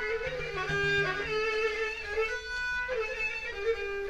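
Instrumental passage of an Azerbaijani folk ensemble: a kamancha bows a sustained melody, with plucked Turkish saz and guitar accompanying.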